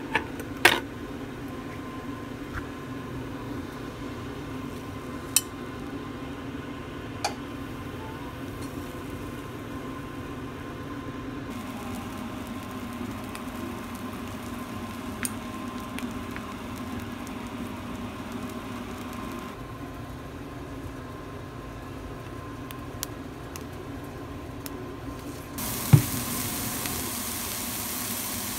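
Kitchen sounds over a steady hum: a few sharp clicks of a knife and utensils in the first several seconds. About 26 seconds in comes a knock, then a steady sizzle as king oyster mushroom slices fry in a hot frying pan.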